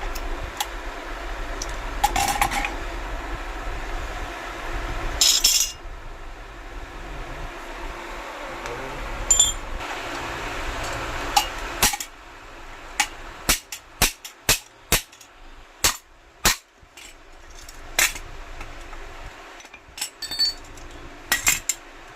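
Metal tools and parts clinking and knocking during washing-machine gearbox repair work. A low hum in the first half stops about twelve seconds in. After that comes a quick run of sharp knocks, with a few more clinks near the end.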